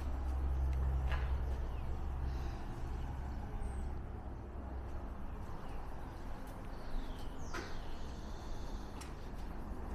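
Outdoor ambience: a low rumble that eases off after about three seconds, a few faint clicks, and a high falling bird call about three quarters of the way through.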